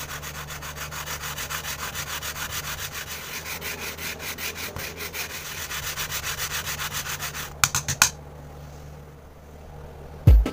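A wooden popsicle stick rubbed back and forth on sandpaper glued to a wooden block, sanding its edge smooth, in rapid, even rasping strokes. The sanding stops about three-quarters of the way through with a few sharp clicks.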